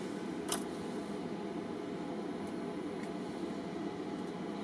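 Steady low background hum. Over it, one small sharp click about half a second in and a few fainter ticks later, from metal flat contacts being worked into a plastic number-plate lamp housing.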